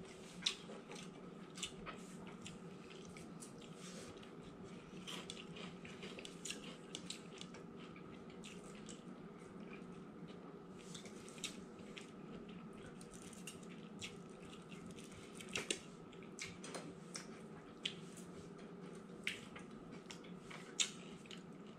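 Faint eating sounds of fried fish being chewed: scattered small clicks and smacks over a steady low hum.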